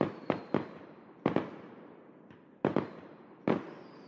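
Sharp bangs in quick clusters of two or three, each dying away, about eight in all, with a faint high steady whistle beneath: an intro sound effect over the logo.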